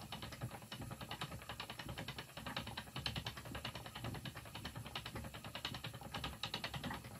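Wooden spinning wheel running while yarn is plied: a fast, even rattling whirr from the turning flyer and bobbin, with a low rumble underneath.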